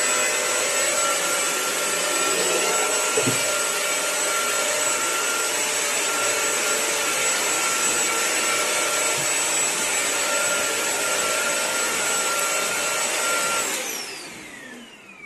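Eureka Forbes Euroclean Mop n Vac wet-and-dry floor cleaner running steadily with a high whine, then switched off near the end, its motor winding down with a falling whine.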